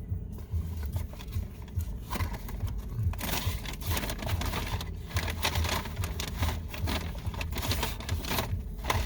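Close-miked eating noise: chewing with crackly rustling and handling of fast-food paper wrappers, a quick irregular run of small clicks and low thumps that gets busier about two seconds in.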